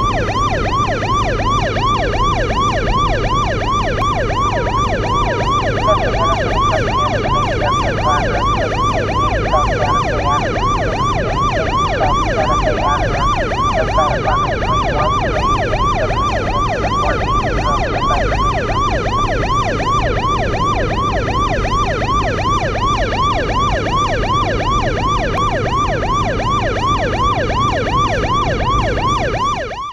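Police car siren in fast yelp mode, its pitch sweeping up and down about four times a second, over a steady low engine and road rumble; it cuts off suddenly at the end.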